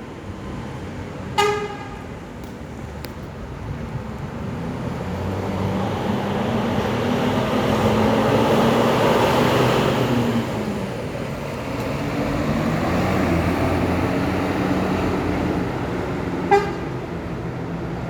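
Intercity buses passing on a road: engine and tyre noise swells to a peak mid-way and fades again. A short horn toot sounds just after the start and another near the end.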